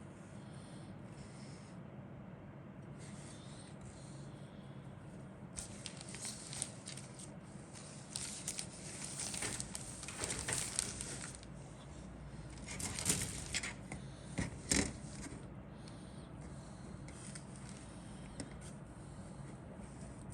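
Crinkling and rustling from handling plastic bags and paper, in irregular bursts that start several seconds in and peak with two sharp crackles, over a steady low hum.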